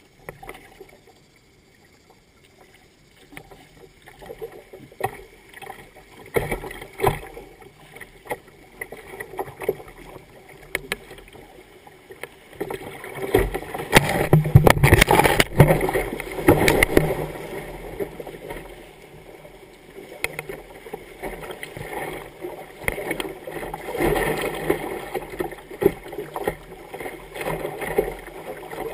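Kayak on a river: irregular paddle splashes and knocks against the hull. A bit past halfway comes the loudest stretch, with grass and leafy branches brushing and scraping over the bow as the kayak pushes through streamside vegetation. Near the end the boat runs into a small rapid, and churning whitewater rushes around it.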